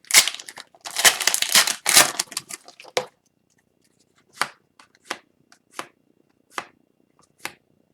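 A hockey card pack being handled: about three seconds of wrapper and card rustling, then the cards flicked through one by one, a short soft snap every half second or so.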